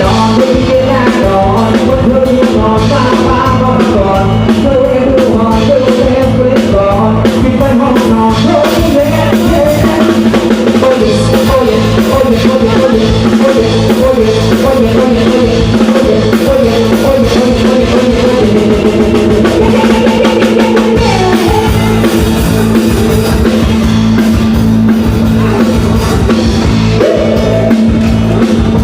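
Mor lam band music played loud: a drum kit and bass keep a steady, driving beat under a held drone and a wavering lead melody.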